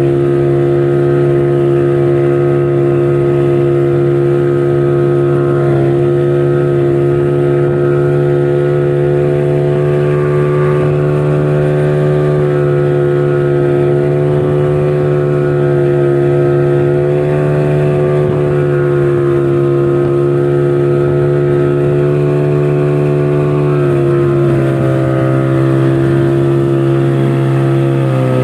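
Motorboat engine running steadily at speed while towing a banana boat, with a hum of fairly even pitch that wavers a little and dips slightly near the end.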